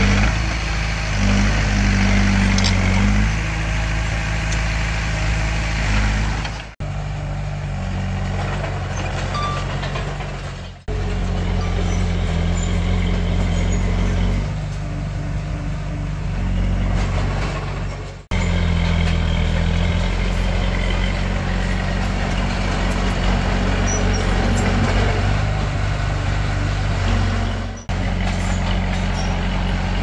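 Diesel engines of earthmoving machines running, their engine speed stepping up and down. The sound breaks off abruptly four times, at about 7, 11, 18 and 28 seconds in.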